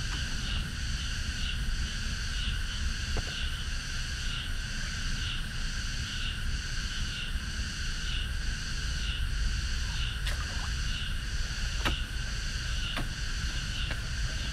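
Cicada chorus droning in the summer heat, swelling in a regular pulse about once a second, over a steady low rumble. A few sharp clicks, most of them near the end.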